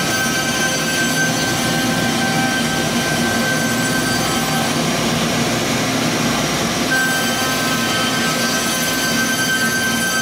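Four spindles of an ALCA AL-2030-4S CNC router cutting into wooden discs at once: a steady high whine over a rough cutting noise. The whine weakens about four seconds in and comes back strongly about seven seconds in.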